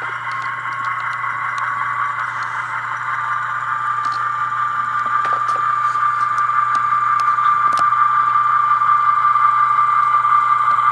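Tsunami sound decoder in an HO-scale model of a GE C44-9W diesel locomotive, playing the diesel engine running through the model's small speaker. It is a steady, thin drone that grows gradually louder, with a few light clicks.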